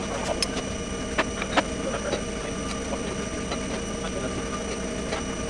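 Scattered sharp metallic clicks and taps of a hand tool and screws on machined aluminium Stirling engine parts being assembled, a few per second at irregular times, the loudest about a second and a half in, over a steady mechanical hum.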